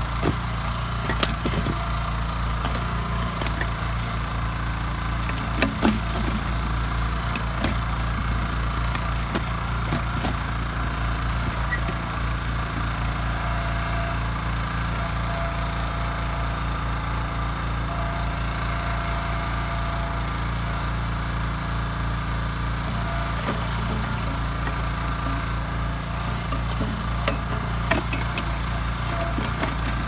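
Kellfri ATV backhoe's small engine running steadily while the bucket digs in the trench, with a few sharp knocks and clicks from the bucket and linkage: about a second in, twice around six seconds in, and near the end.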